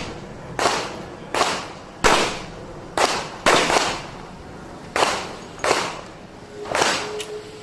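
Revolver shots in rapid strings: about eight sharp reports, mostly half a second to a second apart with one longer pause in the middle, each with a short echoing tail.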